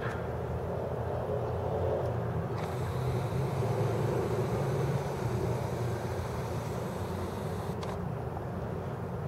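Steady low outdoor background rumble. A Nikon Coolpix P500's lens zoom motor whines for about five seconds in the middle as the lens zooms out, starting and stopping sharply.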